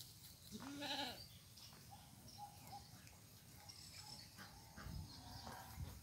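A goat bleats once, a short wavering call about half a second in. A few fainter, higher calls follow later.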